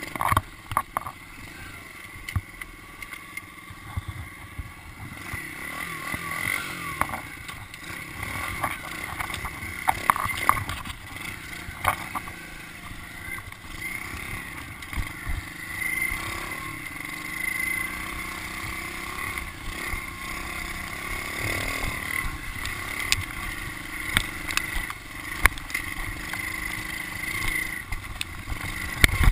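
A 110cc pit bike's single-cylinder four-stroke engine runs under load while ridden over rough ground, with occasional sharp knocks and rattles from the bike over bumps.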